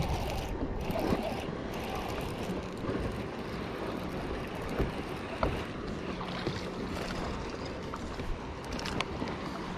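Wind buffeting the microphone and water lapping on open lake water, with a few faint ticks and a faint low hum that comes in about six seconds in.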